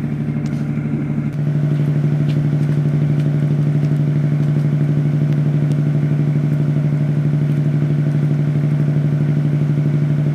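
Steady drone of a ship's engine machinery heard on deck: a low, even hum with a slight regular pulse. It steps up in loudness about a second and a half in.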